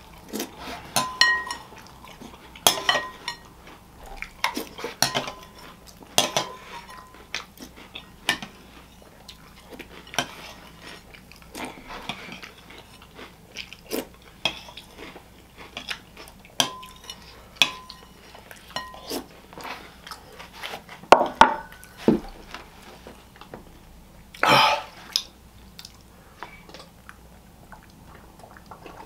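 Spoon clinking against a cereal bowl while eating from it, with chewing between strikes. The strikes come irregularly, about one every second or two, and some ring briefly.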